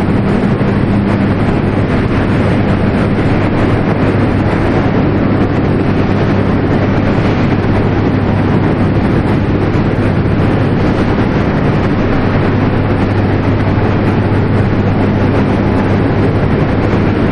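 Continuous steel casting machine running: a loud, steady industrial din, an even rushing noise over a constant low hum.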